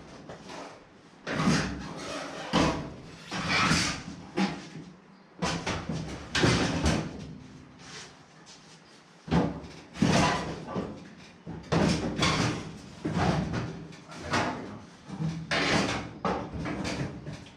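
Sheet-metal quarter panel clunking, rattling and scraping against the car body as it is worked into place over the flange, in a string of irregular knocks.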